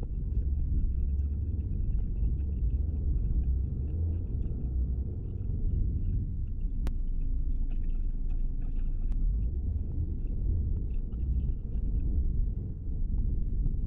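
Steady low rumble of road and engine noise inside a Buick HRV's cabin as it drives along, with a single faint click about seven seconds in.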